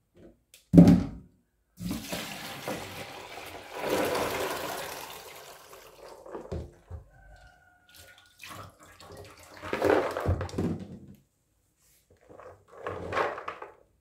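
Bean-soaking water poured from a plastic bowl into a stainless steel sink, splashing toward the drain in a long pour and then in shorter splashes as the bowl is tipped again. A single thump comes just under a second in.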